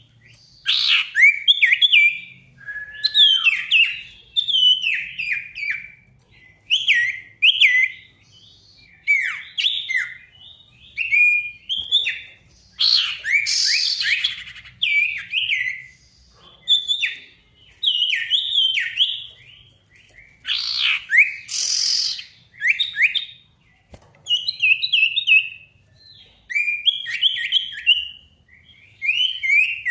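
A male sirtu songbird singing energetically in repeated short phrases of quick, falling whistled notes, with short pauses between phrases and two rougher, raspy calls about a third and two-thirds of the way through. It is the full, sustained song that hobbyists call gacor, used as a lure to set other birds singing.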